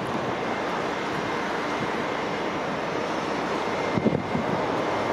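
Steady rushing noise of an approaching passenger train, mixed with wind on the microphone, with a few heavier low thumps about four seconds in.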